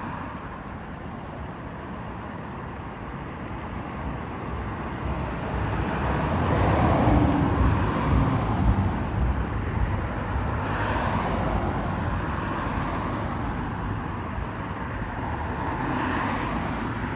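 Road traffic: cars passing on the street over a steady low rumble, swelling louder several times as vehicles go by.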